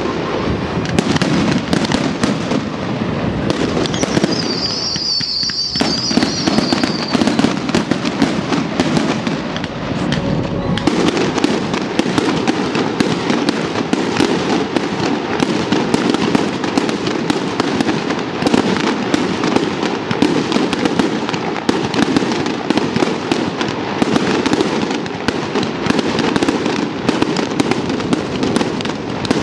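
Fireworks display: aerial shells bursting and crackling in a dense, unbroken run, many bangs a second. A high wavering whistle lasts about three seconds, starting about four seconds in.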